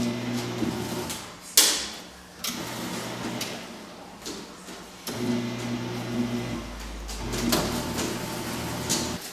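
Fellowes paper shredder's motor running as printed paper is fed in, stopping about a second in and starting again about halfway through when more paper goes in. A sharp click sounds just after the motor stops.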